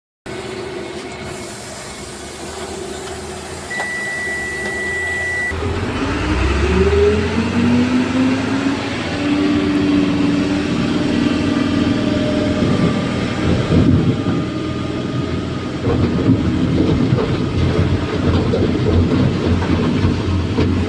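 Heavy diesel machinery at a stone crusher site running steadily, with a single held beep about four seconds in. About six seconds in an engine revs up, its pitch rising and falling, and a dense rattling clatter of machinery and rock builds and carries on to the end.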